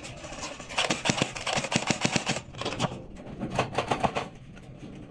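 Airsoft guns firing in two quick bursts of sharp clicks, the second about halfway through.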